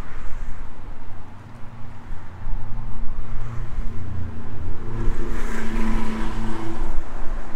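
A motor vehicle engine running, growing louder about five seconds in, over a steady low rumble of wind on the microphone.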